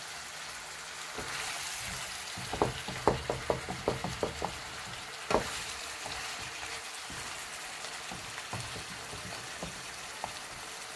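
Chicken and vegetables sizzling steadily in a non-stick frying pan while a wooden spatula stirs them. The spatula knocks against the pan in a quick run of about eight knocks between two and a half and four and a half seconds in, once more just after, and faintly a few times near the end.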